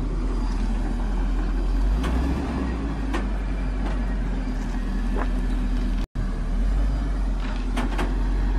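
U-Haul box truck's engine idling steadily, with a few faint clicks over it. The sound cuts out for an instant about six seconds in.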